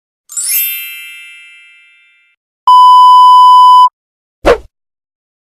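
Three stock sound effects in a row: a bright chime of several tones that rings and fades over about two seconds, then a loud steady beep of one pure tone lasting about a second, the classic censor bleep, then a very short sweep falling steeply in pitch.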